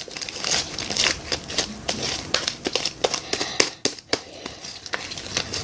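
Clear glue slime, freshly mixed with activator, being kneaded and stretched by hand: a fast, irregular run of sticky clicks and pops.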